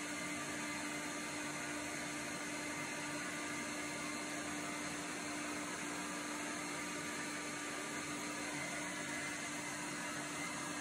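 Wall-mounted hotel hair dryer running continuously, its push button held down by the coiled cord. A steady rush of blown air with a constant low hum, blowing into wet shorts draped over the nozzle.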